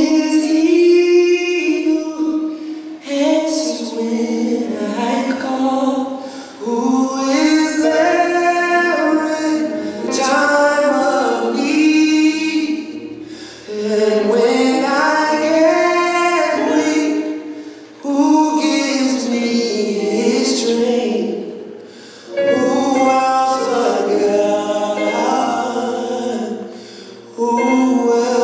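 Gospel choir singing, in sung phrases a few seconds long with brief breaks between them.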